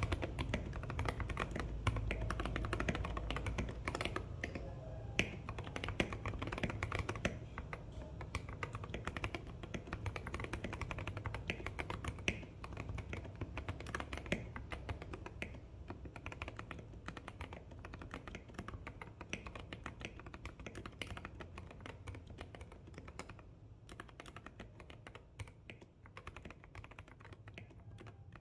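Continuous rapid typing on a 68-key mechanical keyboard fitted with lubed Boba U40 tactile switches, in a typing sound test. The keystrokes get gradually quieter toward the end.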